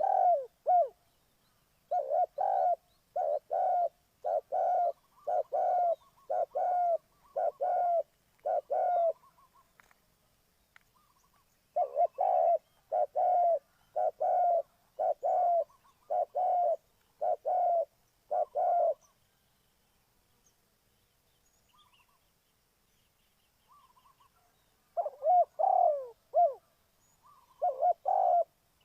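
Spotted dove cooing: runs of short coos about one and a half a second, in bouts of around eight, with pauses of a few seconds between bouts.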